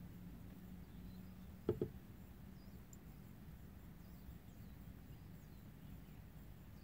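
Two quick, sharp taps close together about a second and a half in, over a faint steady low hum and a few faint, high distant chirps.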